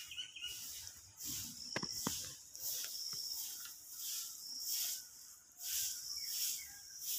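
Insects calling in the background: a high hiss that swells and fades about once a second. A couple of brief sharp sounds come about two seconds in.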